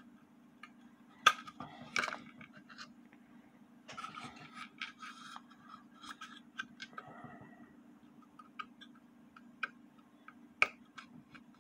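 Small screwdriver scraping and clicking against screws in a small wooden clock case as they are taken out: scattered sharp clicks and short scrapes, the loudest clicks about a second in and near the end, over a steady low hum.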